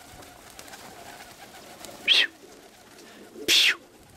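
Roller pigeons cooing faintly in a kit box, with two short, sharp rushing noises, about two and three and a half seconds in.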